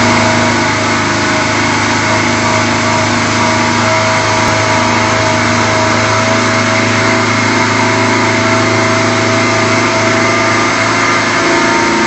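Twin-supercharged 572 cubic-inch big-block Chevrolet V8 running loud and steady on an engine dyno during ECU mapping, held at an even speed, heard through the test cell's glass. Its pitch shifts slightly near the end.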